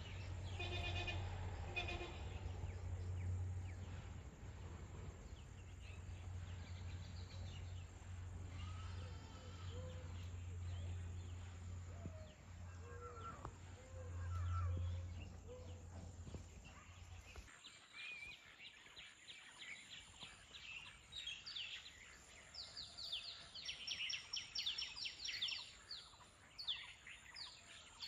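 Outdoor ambience with a steady low rumble for about the first two-thirds, then birds chirping in quick high bursts over the last several seconds.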